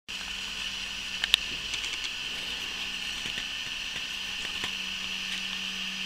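Steady hiss with a low hum under it: room tone and recording noise. A sharp click just over a second in is the loudest sound, and a few fainter ticks follow.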